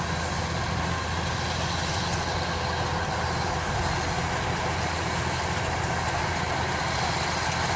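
Kubota DC-105X combine harvester's diesel engine running steadily under load as the machine cuts and threshes ripe rice, a constant even drone with mechanical whir.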